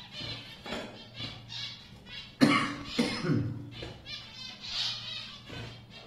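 Zebra finches chirping and calling in short, repeated bursts. A louder, lower cough-like sound comes about two and a half seconds in, with a second one a moment later.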